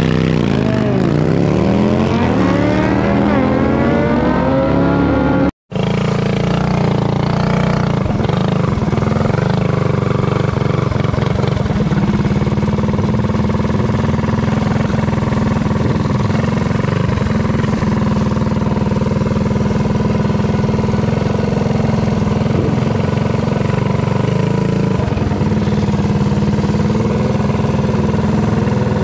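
Vehicle engine accelerating hard: its pitch dips about a second in and then climbs steadily for about four seconds. After a brief dropout the engine holds a steady drone for the rest of the run.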